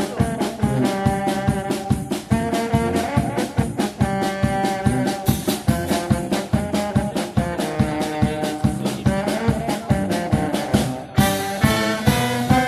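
Background music: upbeat swing-style jazz with brass and a steady fast drum beat.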